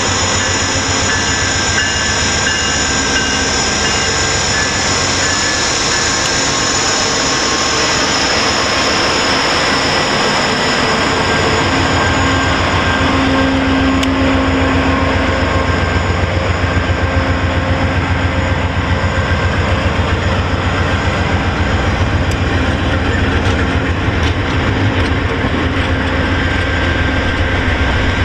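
VIA Rail GE P42DC diesel locomotive approaching and running past at close range, followed by its stainless-steel passenger coaches rolling by. About halfway through, a rapid low rhythmic pulsing sets in as the locomotive and cars go past.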